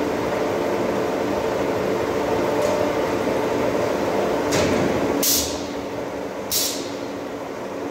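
Automatic silage bagging machine running with a steady mechanical hum. Short sharp bursts of air hiss from its pneumatic valves come about four and a half, five and a quarter, and six and a half seconds in. The hum eases off after the second burst.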